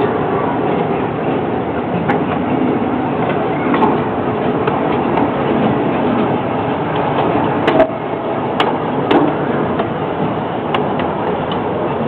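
Open cars of a miniature amusement-park train rolling along narrow-gauge track: a steady rumble with scattered sharp clicks and knocks from the running gear, a few louder ones about two-thirds of the way through.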